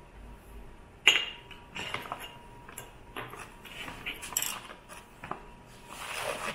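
Plastic measuring spoon scooping sugar from a plastic zip bag and tipping it into a small ceramic bowl: irregular clinks, taps and plastic rustling. The loudest is a sharp clink about a second in, with a longer rustle near the end.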